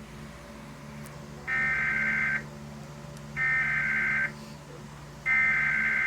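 Emergency Alert System SAME header: three identical bursts of buzzy digital data tones, each just under a second long and about a second apart. They encode the alert's type and area, here a severe thunderstorm warning, and are played through a television.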